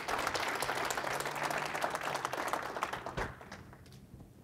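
Audience applauding: many hands clapping together, thinning out and dying away near the end.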